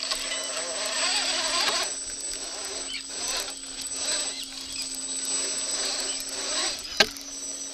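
Brushless electric motor of a 1/8-scale Redcat RC rock crawler whining steadily as the truck crawls over creek-bed rocks, with a single sharp knock about seven seconds in.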